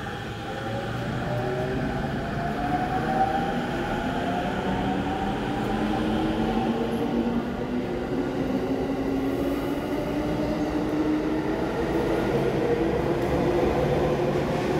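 JR E231 series electric commuter train pulling away from the platform. Its VVVF inverter and traction motors whine in several tones that climb steadily in pitch as it accelerates, over the rumble of the wheels on the rails, and the sound grows louder over the first few seconds.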